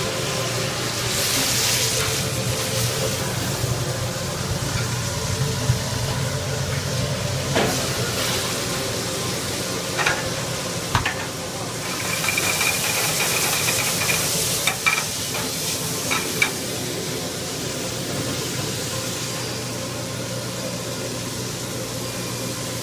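Vegetables sizzling in steel sauté pans over gas burners, the hiss swelling about a second in and again around twelve seconds in, over a steady low hum. A few sharp clanks of the pans being handled stand out above it.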